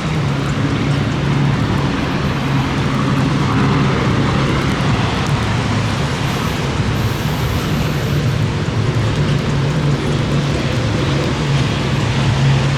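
Thunderstorm noise: a steady hiss of heavy rain and gusting wind, with a steady low hum underneath.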